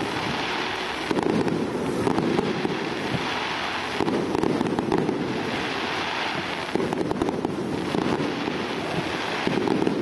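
Aerial fireworks bursting, with dense, continuous crackling and popping that swells in waves every second or two.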